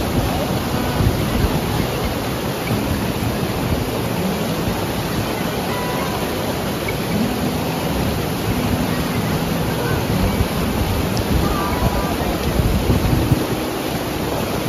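Steady loud rushing of water, with faint distant voices underneath.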